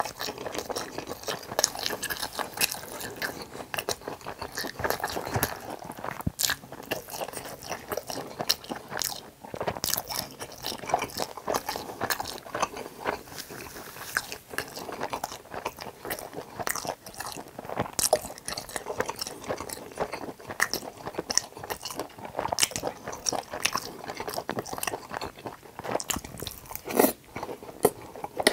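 Close-miked chewing and biting of tangsuyuk, battered fried pork in sweet-and-sour sauce topped with melted cheese: irregular crisp crunches and wet mouth sounds, continuing without pause.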